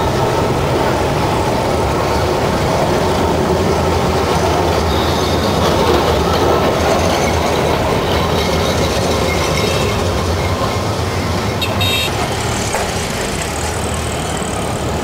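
Calcutta street tram running on its rails, a steady, loud rumble of wheels and car body with faint high squeals, and one sharp click about twelve seconds in.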